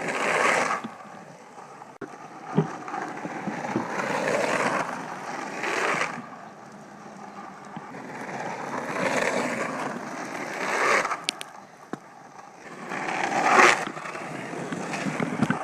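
Landyachtz Switchblade 36 longboard rolling on pavement on its Sector 9 Butterball urethane wheels, a steady rolling noise that swells louder several times. There is one sharp click about two and a half seconds in.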